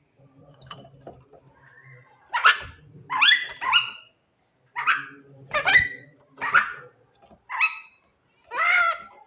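Javan myna (jalak kebo) calling repeatedly: a run of about eight short, loud calls, roughly one a second.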